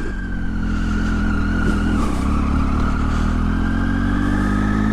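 Triumph Tiger motorcycle's three-cylinder engine running steadily, with the pitch dipping slightly and coming back up about two seconds in.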